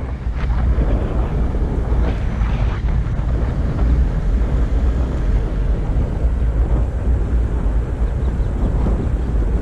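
Wind buffeting the microphone over a steady low rumble, the sound of riding a Backfire Ranger X2 all-terrain electric skateboard.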